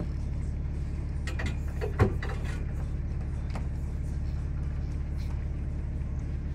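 Boat engine running with a steady low drone, with a few light clicks and a sharper knock about two seconds in.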